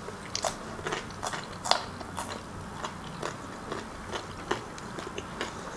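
Close-up mouth sounds of someone chewing khinkali, Georgian meat dumplings: irregular soft wet clicks and smacks, a few each second.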